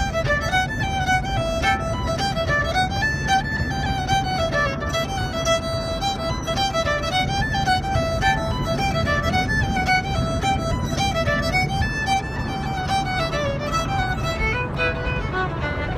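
A fiddle plays a fast tune of quick, short notes over the steady low rumble of a 1979 Ford Econoline van's engine and road noise. The fiddle turns more muffled near the end.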